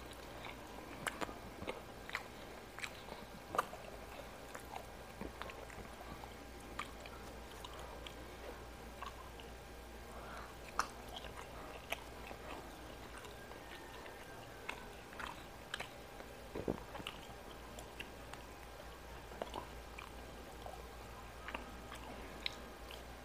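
Close-miked chewing and biting: irregular small clicks, smacks and crunches of a mouth eating fried fish and rice by hand.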